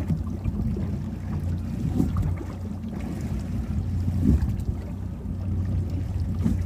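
Wind rumbling on the microphone aboard a small boat rocking in choppy water, with a couple of louder knocks about two and four seconds in.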